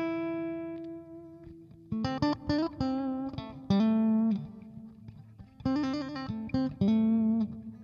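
Electric guitar played through a Digitech RP55 multi-effects processor: a held note rings and fades, then single-note melodic phrases with a few held, slightly bent notes. The bridge humbucker is selected first, then the middle and bridge pickups together.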